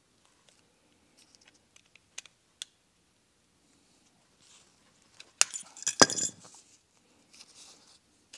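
Metal knife tip and pick clicking and scraping against a BMW M54 double VANOS piston while prying out its old, hardened seal ring. A few light ticks come first, then a louder burst of sharp clinks and scraping about five and a half seconds in, then faint scraping.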